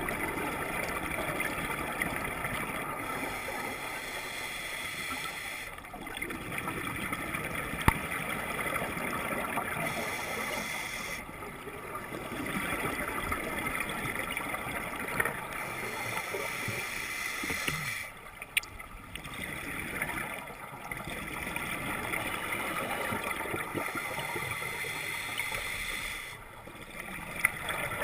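Underwater scuba breathing heard through a GoPro's waterproof housing: a diver's regulator venting exhaled bubbles in a gurgling rush, with a few short lulls between breaths.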